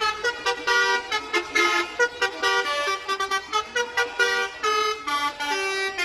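Bus telolet horn, a multi-tone air horn, playing a rapid tune of short notes that step up and down several times a second.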